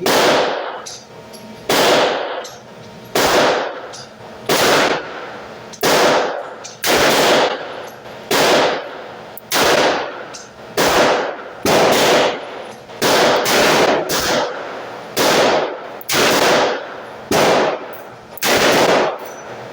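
Repeated gunshots at a shooting range: the Chiappa Rhino 60DS revolver firing among shots from other shooters, about fifteen sharp reports in all, roughly one every second or so, each with a short echoing tail.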